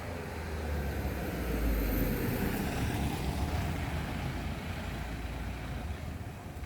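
A road vehicle passing by: its rumble and tyre noise swell to a peak about two seconds in, then slowly fade.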